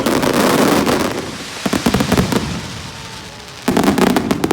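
Aerial fireworks bursting and crackling: a loud burst's crackle fades over the first second, a smaller rattle of crackles comes about two seconds in, and a new loud burst of rapid crackles comes near the end.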